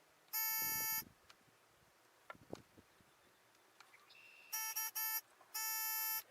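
Mac Tools electronic circuit tester beeping as its probe touches a live wire: one long beep, then a quick run of short beeps and another long beep near the end. The beep signals there is power at the wire.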